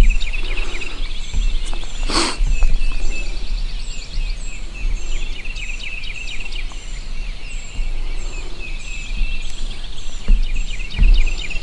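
Songbirds singing in a dawn chorus: a dense run of chirps with a short high note repeating about once a second above it. A low wind rumble on the microphone runs underneath, with a brief rustle or knock about two seconds in.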